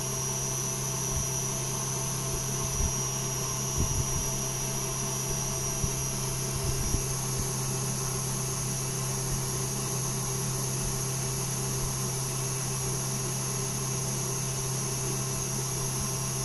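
KitchenAid tilt-head stand mixer running at a steady speed, its whisk beating egg whites and sugar into a stiff meringue: a constant motor hum with a thin high whine, and a few light knocks in the first half.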